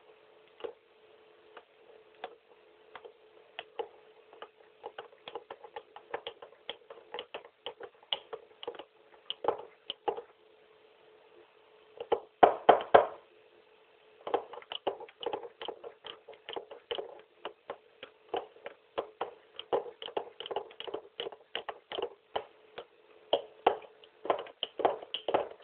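Metal spoon stirring a foamy instant cappuccino in a glass mug, clinking against the glass in quick, irregular ticks. The clinks come thickest and loudest about halfway through.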